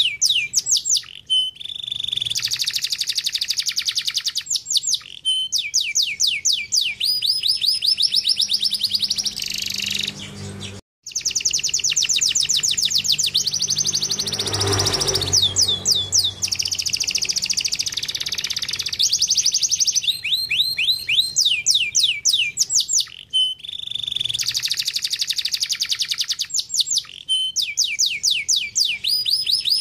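Domestic canary singing: fast trills of many identical high notes repeated in quick succession, one run of notes giving way to the next every few seconds. The song breaks off suddenly and briefly about eleven seconds in.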